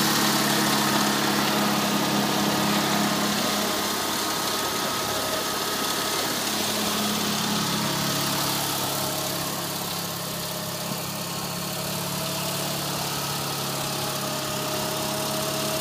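Snapper garden tractor's engine idling steadily.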